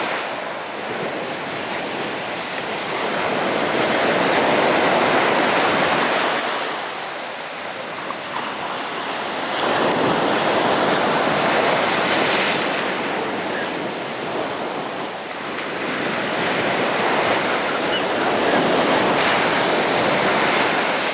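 Sea waves breaking on a beach, the surf swelling and falling back in three long surges a few seconds apart.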